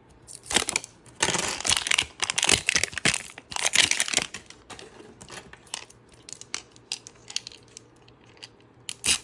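Plastic wrapping crinkling and tearing as a Mini Brands toy capsule ball is unwrapped, with a dense run of rustling for the first four seconds or so. Sparser clicks and taps of hard plastic follow.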